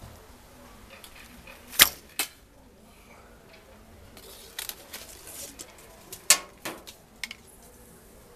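A handmade bow loosed with a sharp snap of the string, then the arrow hitting the tin can target with a knock about half a second later. After some small clicks and rattles, another loud snap and knock follow a few seconds on.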